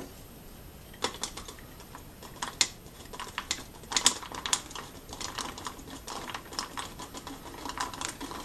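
Irregular clicks and crackles of a thin plastic bottle and funnel being handled while manure slurry is tipped into it from a glass jar, quiet for about the first second, then in scattered clusters.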